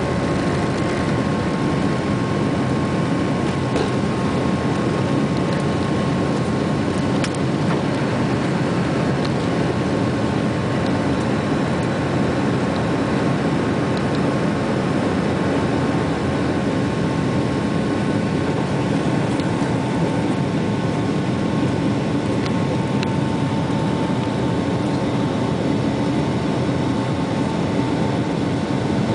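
Boeing 757-200's jet engines at takeoff thrust, heard inside the passenger cabin: a steady, loud rush with a faint whine that drops slightly in pitch about two-thirds of the way through.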